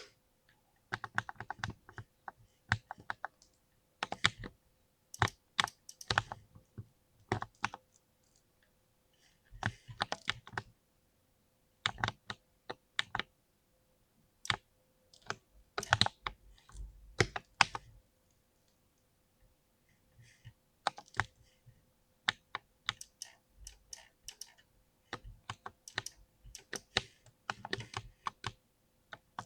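Mechanical keyboard with linear switches being typed on: keystrokes come in irregular bursts of rapid clicks, broken by pauses of a second or two.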